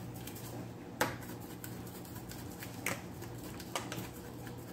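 A few scattered light clicks and taps as seasoning is shaken from a shaker bottle over raw chicken and the pieces are worked by hand in a plastic tub, the sharpest about a second in, over a faint steady low hum.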